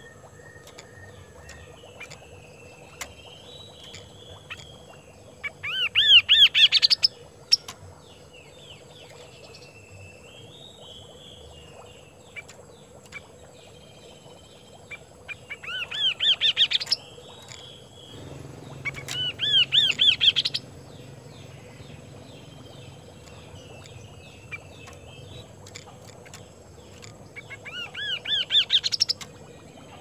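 Chestnut-capped babbler singing: four loud bursts of rapid, rising repeated notes, each about a second and a half long, with softer twittering chatter between them.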